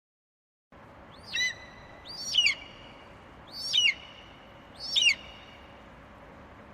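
An eagle screeching four times, each call a sharp cry that falls in pitch, over a steady background hiss.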